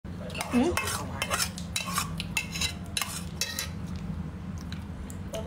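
Metal cutlery clinking and scraping against dishes, a run of quick clinks for the first three seconds or so, then quieter, over a steady low hum.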